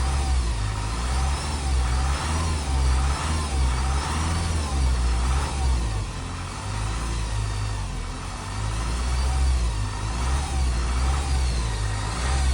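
Honda 2.2 i-CTDi four-cylinder turbodiesel engine running with a whine that wavers up and down in pitch over a pulsing low rumble. The horrible whining began after a timing chain kit replacement and stays with the accessory belt removed, so it comes from inside the engine; the owner suspects the original cam gears.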